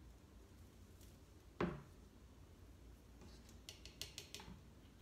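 A plastic corn syrup bottle set down on the kitchen counter with a single knock about a second and a half in, then a quick run of light clicks and taps from a plastic measuring spoon in a metal saucepan.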